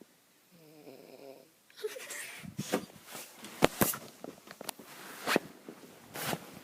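A sleeping person snoring: a wavering, buzzy snore about half a second in, then a run of noisy snorts and sharp clicks, the loudest a pair of clicks a little before the four-second mark.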